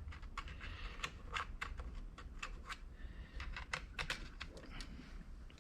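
Irregular run of quiet, sharp clicks and taps on a MacBook Pro's keys and trackpad, about three or four a second.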